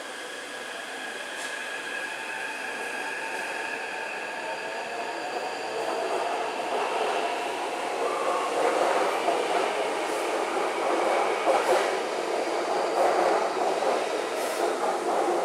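Taipei Metro C381 train, software-modified, pulling out and accelerating past a platform. The traction system whines in steady high tones, then a lower whine rises in pitch, and the wheel and running noise grows louder as the cars go by, with a few sharp clicks.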